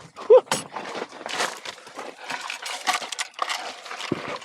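A shooter moving between shooting positions with gear clattering: scattered knocks, rustles and light clinks, plus one brief loud pitched blip about a third of a second in. No shots are fired.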